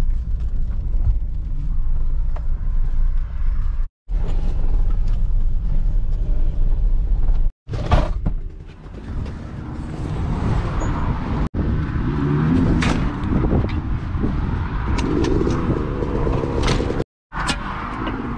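Van driving slowly over a rough dirt track, heard from inside the cab as a steady low rumble; after a few abrupt cuts, several sharp knocks and clatter as the van is got out of and a metal bike stand is handled.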